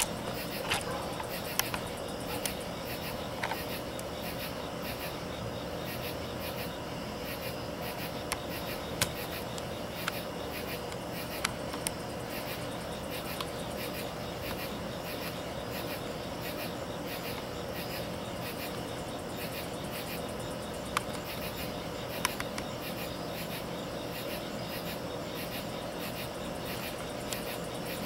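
Night insects, crickets among them, chirping in a steady pulsing rhythm, with a few short faint clicks.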